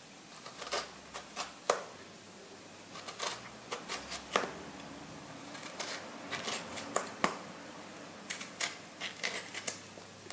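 Knife slicing lemons into rounds by hand, with irregular sharp clicks and taps as the blade cuts through the rind and the slices are set down on a plate.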